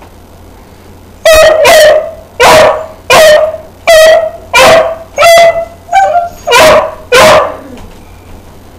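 A dog barking about ten times in quick succession, loud, short barks at a steady pitch, in a standoff with another dog that has taken its rawhide bone.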